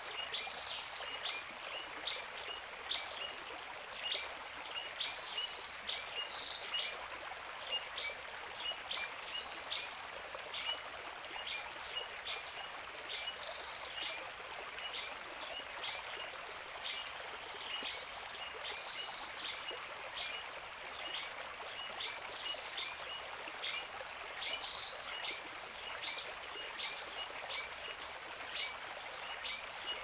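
A small stream running steadily over rocks, with birds chirping over it in short, sharp notes once or twice a second.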